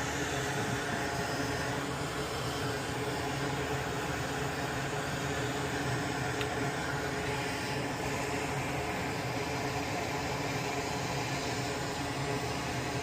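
A small electric fan or blower running steadily: an even motor hum with an airy hiss that does not change.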